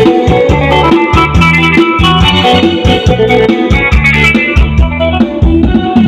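Music played loudly through an outdoor PA speaker system, streamed over Bluetooth from a phone, with a strong repeating bass line under sustained keyboard-like notes.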